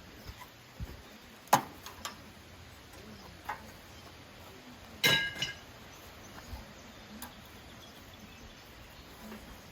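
Scattered knocks and clinks of metal parts and tools being handled: a sharp knock about one and a half seconds in and a ringing metallic clink about five seconds in, with faint ticks between.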